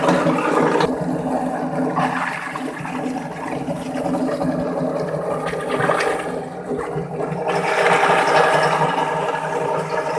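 Plastic-recycling grinding machine running: a steady motor hum under a rushing, churning noise that swells and dips every few seconds as the plastic is ground.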